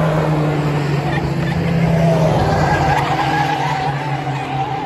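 Engines of racing pickup trucks running at speed around a short oval, one passing close. A steady low engine note drops in pitch about two seconds in, and a higher wavering tone rises over it in the second half.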